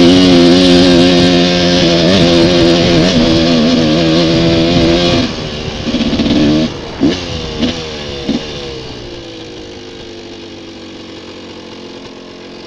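Motorcycle engine pulling hard with a steady note, then the throttle closes about five seconds in. A few short throttle blips follow, and the engine note then falls away slowly as the bike slows down.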